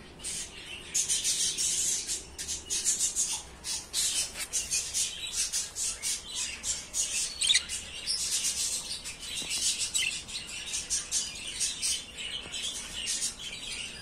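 Pet budgerigars chattering: a dense, unbroken stream of short high chirps and squawks that picks up about a second in.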